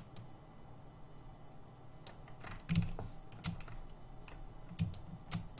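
About nine irregular clicks and taps from a computer keyboard and mouse, the loudest about three seconds in.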